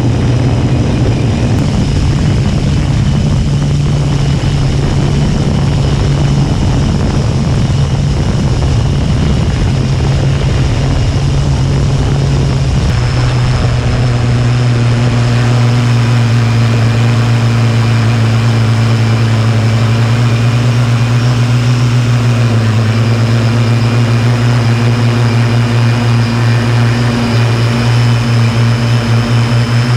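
Homebuilt quadcopter's electric motors and propellers running steadily with a loud, multi-toned whine, heard from the camera on board. About halfway through, a low rumble under the whine drops away and the motor tones settle to steadier pitches.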